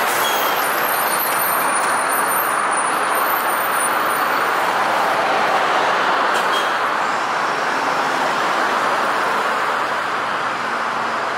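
Mercedes-Benz city bus running close by and pulling away, a steady rush of engine and tyre noise with street traffic, easing off a little as it moves off.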